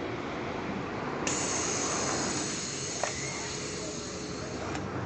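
A steady hiss of compressed air that starts suddenly about a second in and cuts off shortly before the end, with a single click partway through.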